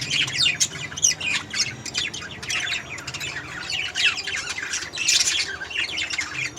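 Budgerigars chattering and squawking: a dense run of quick, short, downward-sweeping high calls, many birds overlapping.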